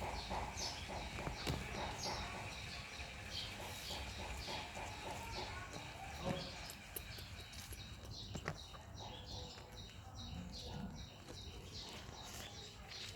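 A steady series of short high chirps, two or three a second, over a low background rumble, with a couple of single knocks in the middle.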